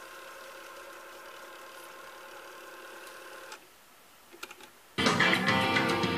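Nakamichi MR-1 cassette deck fast-winding a tape with a steady whine that stops about three and a half seconds in. A few short clicks of the deck's transport buttons follow, and about five seconds in guitar music starts playing back loudly from the tape.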